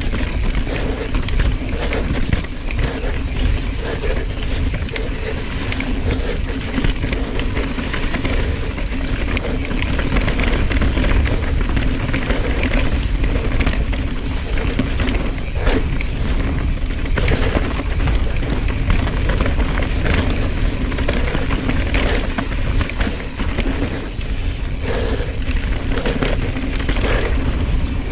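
Nukeproof Mega 290 enduro mountain bike descending a rough downhill trail: a continuous low rumble of wind and tyres, with constant rattles and knocks from the bike over rocks and roots.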